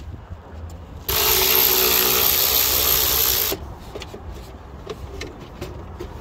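Cordless drill-driver spinning steadily for about two and a half seconds, starting about a second in, backing out a 7mm dashboard screw. Afterwards come light clicks of plastic trim being handled.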